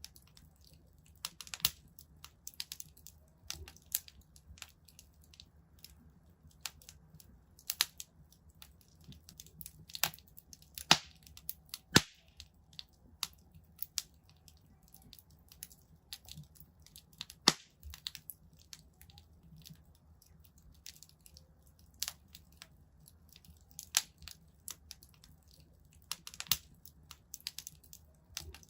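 Wood fire in a fireplace crackling: irregular sharp pops and snaps, a few much louder than the rest, over a faint low steady rumble.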